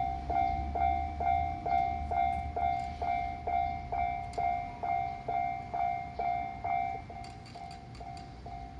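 Japanese railroad crossing warning bell ringing, a repeated electronic clang about twice a second, with a low rumble under it for the first few seconds.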